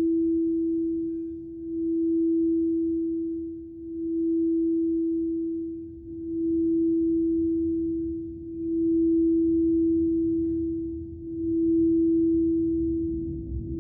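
Crystal singing bowl played around the rim, ringing one steady low pure tone that swells and fades about every two and a half seconds.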